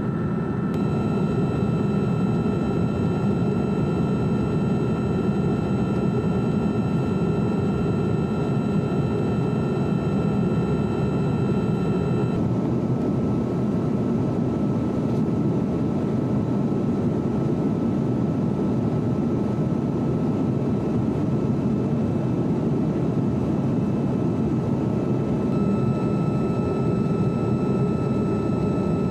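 Steady jet aircraft cabin noise heard from inside the airborne filming aircraft: a constant deep engine and airflow drone with a faint high whine. The whine changes abruptly about a second in, around twelve seconds in and near the end.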